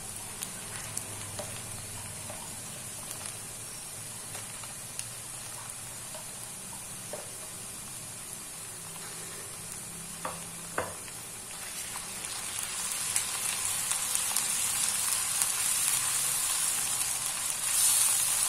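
Chopped onions sizzling steadily in hot oil in a wok, the frying growing louder in the second half. Two soft knocks come about ten seconds in as garlic-ginger paste goes into the pan, and a spoon stirs the onions near the end.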